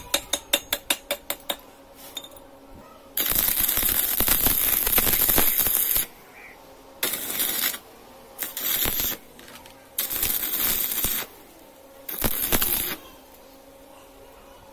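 A quick run of about a dozen metal-on-metal taps, then a stick (arc) welder's electrode crackling and hissing. There is one continuous weld of about three seconds, then four shorter welds, each cutting off abruptly.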